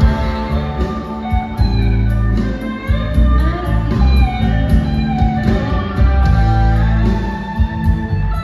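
Live blues-rock band playing: electric guitar lines with bending, gliding notes over heavy bass, keyboard and drums with steady cymbal ticks, heard from the audience in a large hall.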